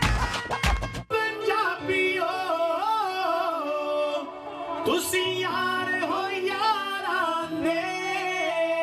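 Drum-driven music cuts off about a second in. A solo singer follows with a long, ornamented vocal line, the pitch bending through quick turns and held notes, over a steady sustained accompaniment.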